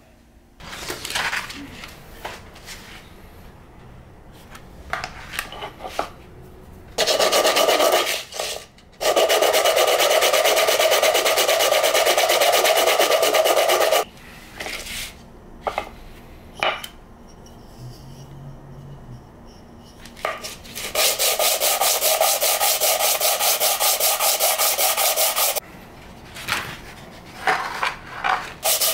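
Hand sanding: a small wooden block with metal end caps rubbed back and forth on a sheet of sandpaper laid flat on a board. The sanding comes in runs of rapid, even strokes, the longest about five seconds, with rustling of sandpaper sheets and small knocks between.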